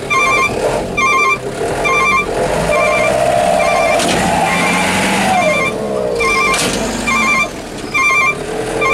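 A diesel light truck's engine revs up under load as it strains to tow a truck stuck in mud, holds high with a burst of noise, then drops back. It fails to pull the stuck truck free. Throughout, a short electronic beep repeats about every 0.8 s.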